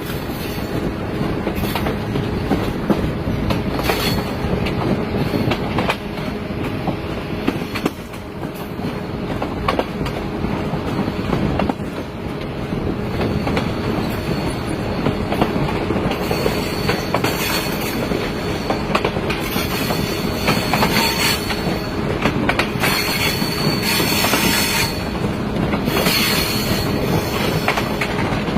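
Train running along the track with a steady rumble and irregular clacks of the wheels over rail joints. From about halfway in, the wheels squeal high-pitched several times, in spells a second or two long.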